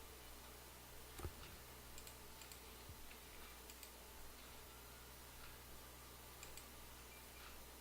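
Faint, scattered computer mouse clicks, the clearest about a second in, over a low steady room hum.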